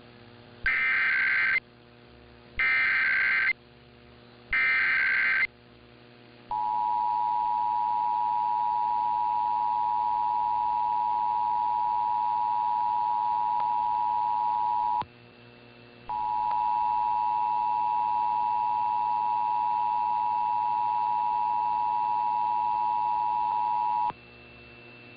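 Emergency Alert System broadcast tones. Three one-second bursts of SAME header data tones, then the two-tone EAS attention signal, 853 and 960 Hz sounding together, held steady for about eight seconds. It breaks off for about a second, then sounds again for about eight seconds more.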